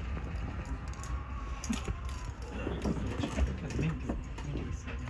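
JR Freight Koki container wagons rolling slowly past: a steady low rumble of wheels on rail with scattered metallic clicks and clanks.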